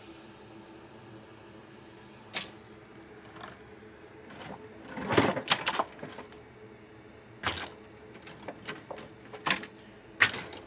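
Circuit boards being shuffled through by hand, knocking and clattering against each other in scattered sharp clacks, with a dense flurry about five seconds in.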